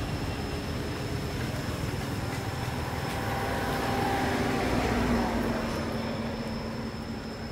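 Steady low rumble of a distant engine, with a hum that swells about four to five seconds in and then eases off.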